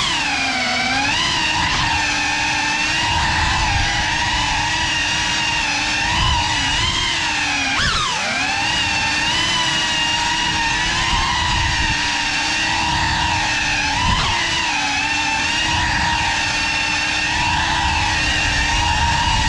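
GEPRC 5-inch FPV quadcopter's brushless motors and propellers whining steadily in flight, the pitch sagging and rising with throttle. About eight seconds in, the pitch drops sharply and climbs straight back.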